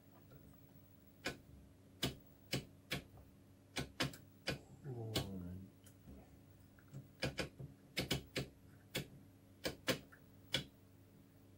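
Sharp, irregular clicks as the round knob on the front panel of a Pye/Astor T25X television is turned, over a faint steady hum from the powered-up set. About halfway through, a brief wavering tone falls in pitch.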